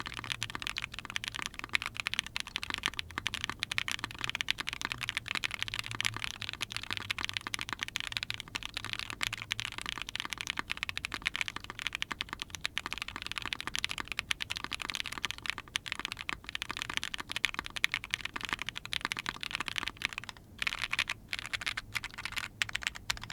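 Continuous fast typing on a Vega mechanical keyboard with Neson Design Camping Life linear switches (JWK-made, lubed with 205g0) on a POM plate under GMK keycaps: a dense run of key clacks, with a brief pause about 20 seconds in.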